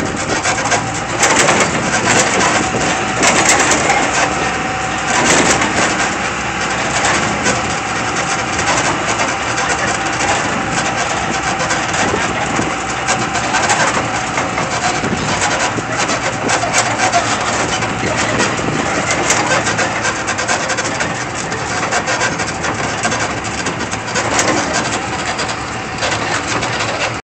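Open-air tram trolley under way: a steady rumble of its engine and running gear, with scattered clicks and rattles.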